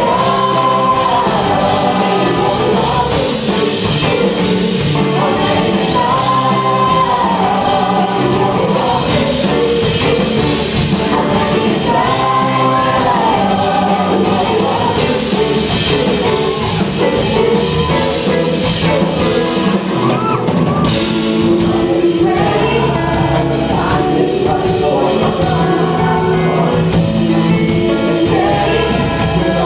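A live pop-rock band plays a song while a man and a woman sing lead into handheld microphones. The sung phrases repeat every few seconds over drums, electric guitar and keyboard.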